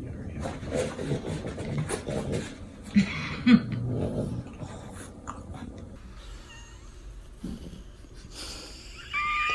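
French bulldogs making low grumbling vocal sounds, with two short louder grunts about three seconds in. Just before the end, after a cut, a dog's higher, drawn-out whine begins.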